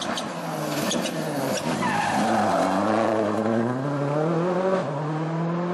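Ford Focus WRC rally car's engine at full stage pace: the revs fall as it slows for the bend, then climb hard as it accelerates away, with a sudden drop near the end at a gear change before rising again. A few sharp cracks sound in the first two seconds.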